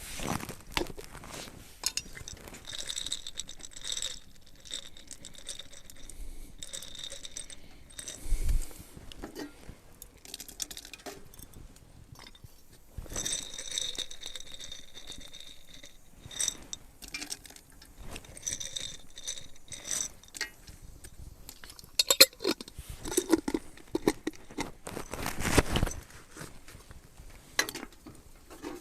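Irregular clinks, knocks and rustles of small hard objects being handled, louder and busier about three-quarters of the way through.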